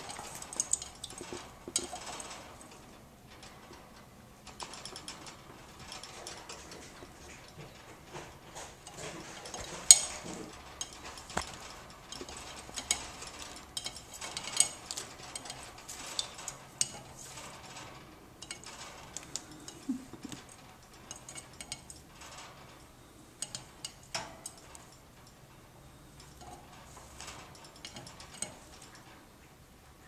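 Cockatiel bathing in a shallow plastic birdbath in its cage: an irregular run of small clicks, taps and splashes, with one sharp knock about ten seconds in.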